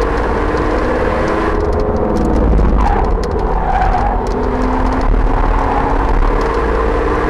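Audi RS4 engine heard from inside the car under hard driving, its pitch climbing, dropping about two seconds in, then climbing again through the rest of the stretch, over heavy road and tyre rumble.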